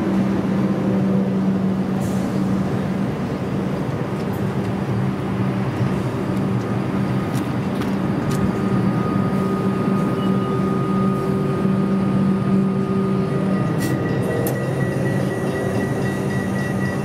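Comeng electric multiple unit standing at the platform, its on-board equipment humming steadily with several fixed tones. A higher steady tone joins near the end, and a few sharp clicks sound now and then.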